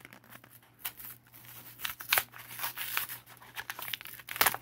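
Plastic blister pack being ripped off a Hot Wheels blue-card package by hand: irregular crinkling plastic and tearing card, with a run of sharp crackles and snaps, loudest near the end.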